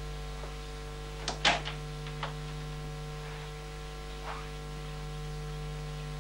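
Steady electrical mains hum on an old soundtrack, with a few faint clicks and knocks, the loudest about a second and a half in.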